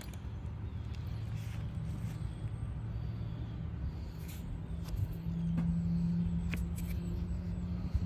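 A steady low mechanical hum, like an engine or motor running, that grows louder about five seconds in, with a few faint clicks.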